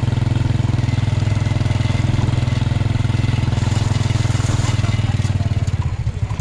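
An engine running steadily with a fast, even chugging pulse, its pulse loosening slightly near the end.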